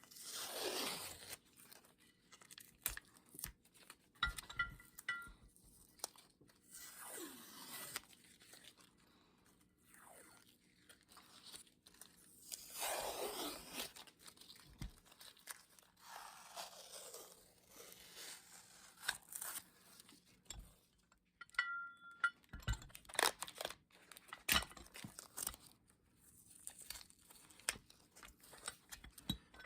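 Faint, intermittent scraping strokes on the old bench vise's metal as it is cleaned, with scattered clicks and a few short metallic clinks.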